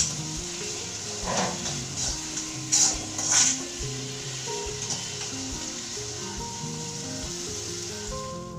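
Sliced onions, green chillies and ginger frying in hot oil in a pan with a steady sizzle. The spoon scrapes through them a few times, the loudest about a second and a half in and around three seconds in. The onions are being sautéd until they wilt.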